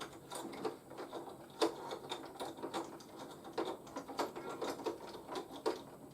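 Plastic toy being handled, giving irregular small clicks and knocks of plastic parts.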